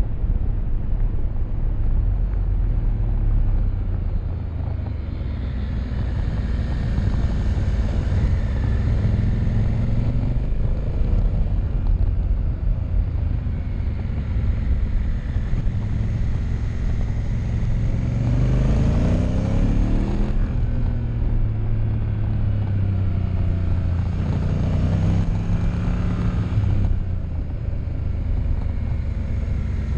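Honda Africa Twin CRF1000L's 998 cc parallel-twin engine pulling the bike around a track, with heavy wind rumble on the bike-mounted camera's microphone. The engine note climbs in pitch twice in the second half as the bike accelerates out of corners.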